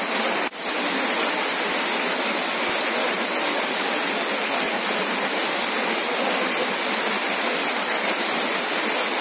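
Heavy rain pouring down and splashing into standing floodwater, a steady dense hiss. It drops out for an instant about half a second in.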